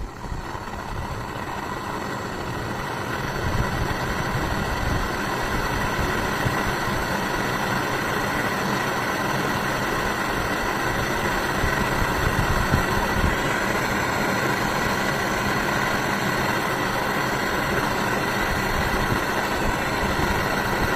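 A small electric power tool's motor running steadily with a high whine, working on metal. It starts suddenly, settles to a steady level after a few seconds and cuts off near the end.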